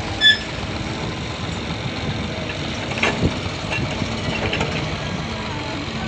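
An engine idling steadily. A short high beep comes just after the start, and one or two knocks about three seconds in.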